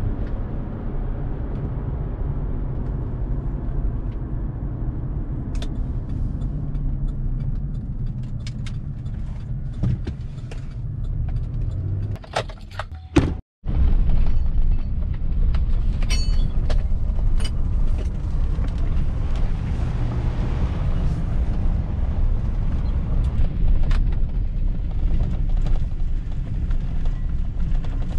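Pickup truck driving, heard from inside the cab: a steady low engine and road rumble. The sound breaks off briefly about halfway and resumes just as steady. Scattered light clicks and rattles occur before and after the break.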